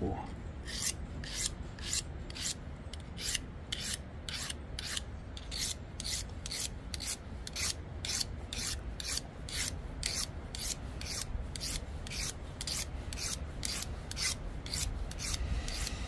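Small blade of a budget Rocktrail Swiss-army-style pocket knife being drawn again and again across a handheld sharpening rod, a steady run of short metal-on-metal scraping strokes about two to three a second. The blade is a relatively soft cheap stainless steel, which he judges by feel to be 7Cr17 or perhaps 5Cr15.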